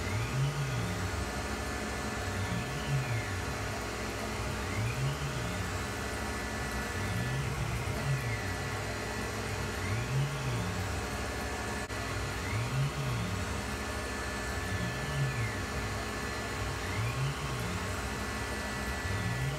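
Tormach 1100 CNC mill's spindle and end mill taking a roughing cut in metal stock under flood coolant spray. The cutting tone rises and falls in a repeating cycle about every two and a half seconds.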